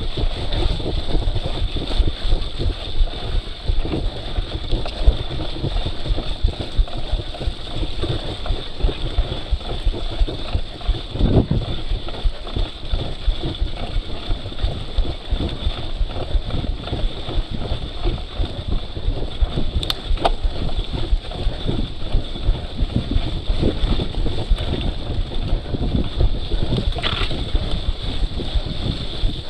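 Mountain bike ridden up a muddy climb: a steady rumble of wind and jostling on the camera microphone, with a few knocks from the bike.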